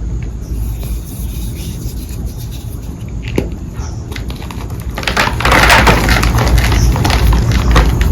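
A block of red reformed chalk being crushed, a dense crumbly crackle with many small snaps that starts about five seconds in. Before it there is a low rumble and a single click.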